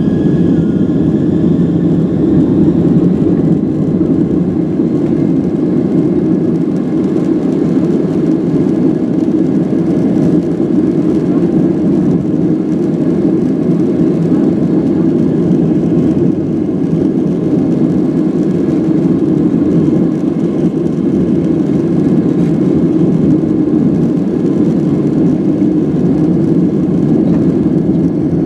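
Steady jet engine and airflow noise heard from inside the cabin of a Boeing 767-300 airliner, a deep even rush. A faint engine whine rises slightly during the first few seconds.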